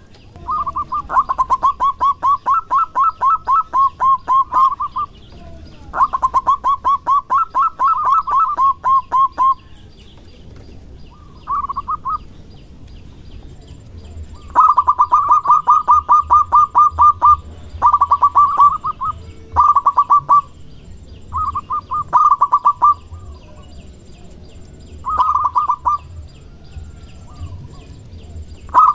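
Zebra dove (perkutut) calling in bursts of rapid staccato notes, about ten a second. Each burst lasts from under a second to about four seconds, with short pauses between.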